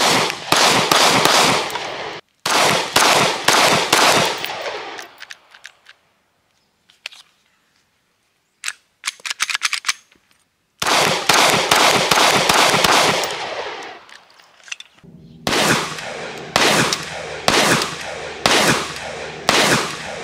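Kahr CW9 9mm pistol fired in quick strings of shots, about two a second, each shot echoing. The strings break off and restart suddenly, with a lull of a few seconds in the middle.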